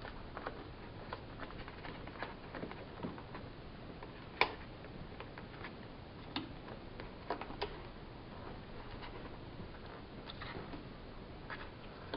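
Light, irregular clicks and ticks of fingers handling thermostat wires and pressing them into the push-in wire connectors of a Nest thermostat base, with one sharper click about four seconds in.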